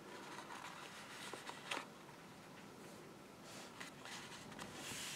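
Quiet room tone with a couple of faint clicks and soft rustling from hands handling a paper box card, the rustle building a little near the end.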